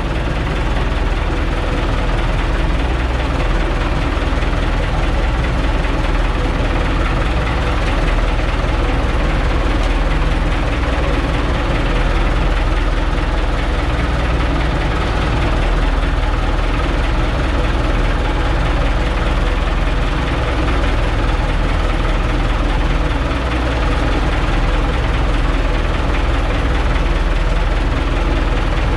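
Fishing boat's engine running steadily at close range, a loud, even drone that does not change.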